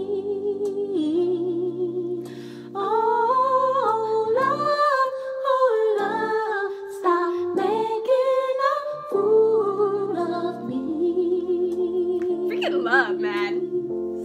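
Women's voices singing and humming wordless held notes with vibrato along with a slow soul song playing behind them. Near the end comes a quick rise to a high note and back down.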